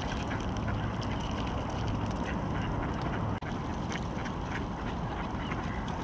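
A flock of ducks, mostly mallards, quacking in many short, scattered calls over a steady low background hum.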